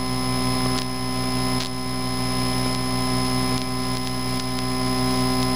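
Cessna 152's four-cylinder Lycoming engine and propeller droning steadily at climb power, heard from inside the cockpit.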